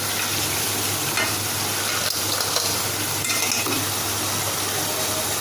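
Crab pieces and onion-tomato masala sizzling steadily in hot oil in a pan while being stirred, with a few faint scrapes of the spoon against the pan.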